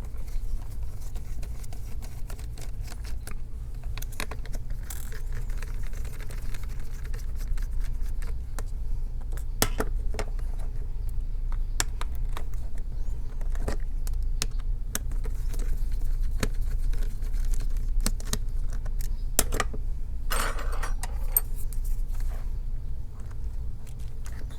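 Scattered small clicks and light rattles of hands working on an opened laptop, lifting the display hinge, over a steady low hum.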